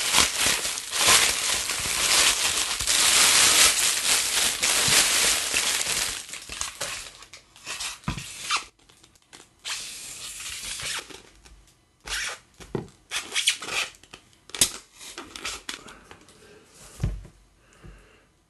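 Clear plastic wrapping crinkling and tearing as a foam mannequin head is pulled out of it, loud and continuous for about six seconds, then scattered rustles with a few light knocks as the head is handled and set down.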